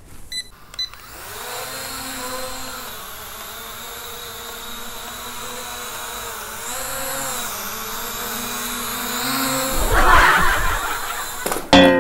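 E88 mini quadcopter drone: a few short high beeps, then its small electric motors and propellers whirring up to a steady whine whose pitch rises and dips with the throttle. Around ten seconds in comes a loud rough burst of noise, and just before the end a sharp knock, after which the motor pitch starts to fall.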